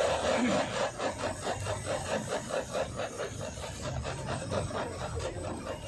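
Rapid, even scraping strokes of a utensil working food at a kebab stall, about five a second, a little louder in the first second.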